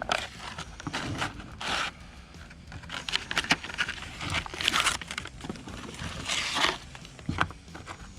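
Plastic packaging being handled and opened: crinkling and tearing with small clicks and scrapes in irregular bursts.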